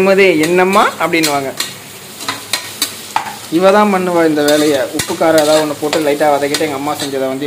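A metal ladle stirs sliced onions and green chillies frying in oil in an aluminium pressure cooker. It scrapes against the pot with a wavering squeal and knocks on it with sharp clicks, over a sizzle.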